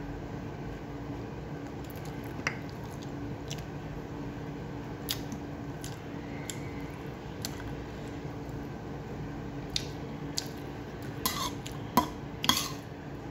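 Eating sounds: scattered small clicks of chewing, then a few sharp clinks of cutlery against a plate near the end, over a steady low hum.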